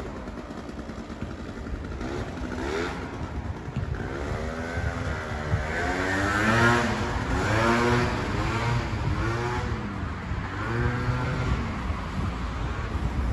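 Small scooter engine revving up and down over and over, the pitch rising and falling about once a second, with a steady lower engine hum beneath.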